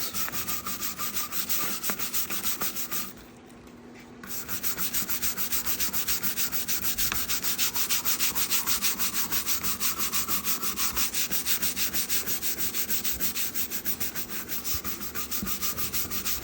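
Soft bristle brush scrubbing a wet, cleaner-sprayed steel garage door panel in quick back-and-forth strokes, pausing for about a second around three seconds in, to lift smeared grease off the matte finish.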